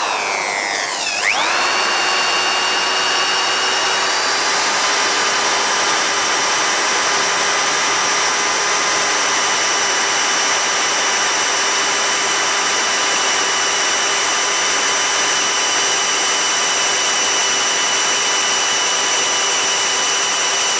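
Corded electric drill boring through the steel sheet of a wheelbarrow body for rivet holes. Its motor dips and winds back up about a second in, then holds a steady whine.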